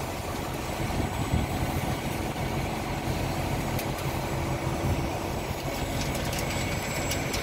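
Concrete mixer truck's diesel engine idling steadily, a constant low hum.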